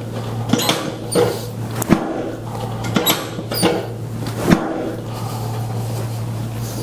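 About half a dozen short, sharp clicks and knocks, irregularly spaced, from a chiropractic adjustment of a patient lying face down, with joint cracks and body-on-table knocks among them. They stop about five seconds in, leaving a steady low hum.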